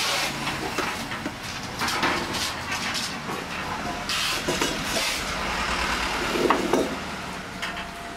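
Irregular knocks, clatter and scraping of a sewing-machine table and its leg stand being handled and turned over.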